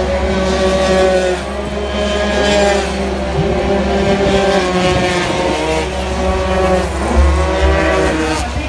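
Several 80cc racing scooter engines running hard together, their pitch rising and falling as the riders accelerate and back off through a turn.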